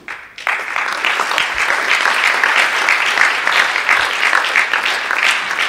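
Audience applauding, starting about half a second in and going on steadily.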